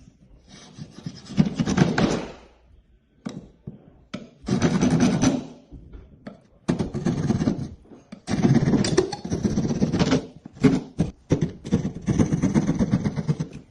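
Plasterboard being cut with a hand saw: rasping sawing strokes in five bursts of one to two seconds each, with a few short knocks between them.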